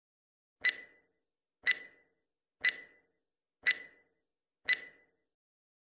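Countdown-timer clock-tick sound effect: five identical sharp ticks, one a second, each with a short metallic ring.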